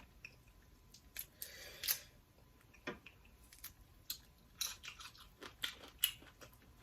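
Close-miked eating: irregular wet mouth clicks and smacks of someone chewing, with a short slurp-like rustle about one and a half seconds in.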